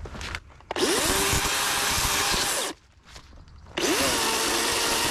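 Cordless brushless chainsaw run in two bursts of about two seconds each, cutting through a fallen limb. Each time the motor whines up to speed, then holds a steady pitch under the rasp of the chain in the wood.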